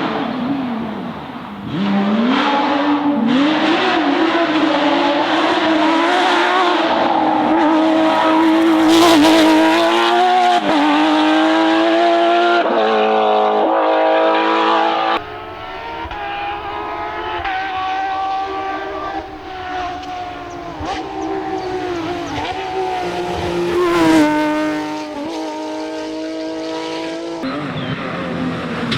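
Porsche rally cars at full throttle on a stage, the engine note repeatedly climbing and dropping back as they shift up through the gears. About halfway through it cuts to a quieter car, still revving up and down.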